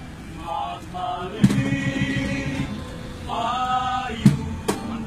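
Young men Christmas caroling, singing short phrases together, including one held chord. Sharp percussive hits punctuate the singing: one loud hit after the first phrase, then several more near the end in a steady beat.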